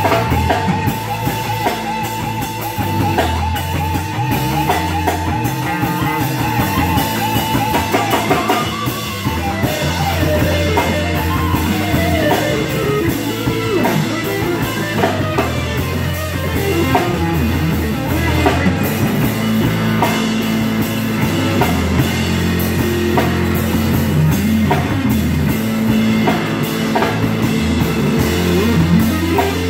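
Live rock band playing an instrumental passage: electric guitar playing lead over electric bass and a drum kit. The guitar holds one wavering note for the first several seconds, then moves into quick runs.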